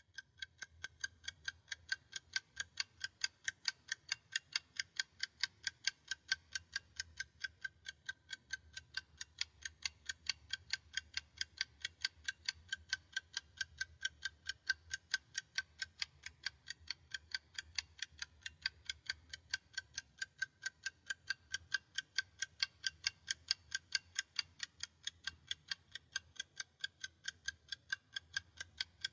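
Clock ticking in quick, even ticks, about three a second, with a faint low hum underneath.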